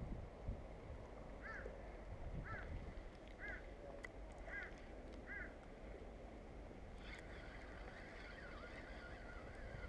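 A bird calling: five short notes that rise and fall, about a second apart, then a longer wavering, warbling call from about seven seconds in, faint over low wind and water noise.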